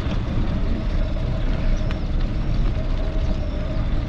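Wind rumbling on the microphone while cycling, over the steady noise of road traffic.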